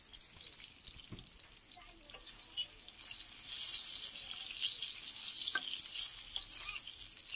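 Chicken pieces sizzling in oil on a large flat griddle, with metal spatulas scraping and clicking against the griddle. The sizzle grows louder about three and a half seconds in, as the spatulas stir the chicken through the hot oil.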